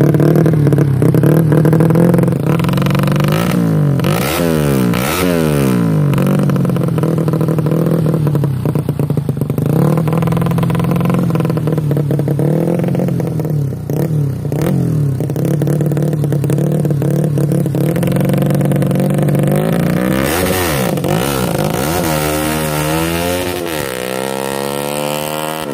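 Bored-up Suzuki Smash four-stroke motorcycle engine, about 130 cc, idling and revved up and down several times. Near the end it pulls away, the revs climbing as it rides off and the sound dropping away.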